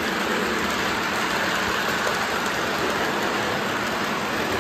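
Lionel Polar Express model train running along its track: a steady, even rolling hiss of metal wheels and motor.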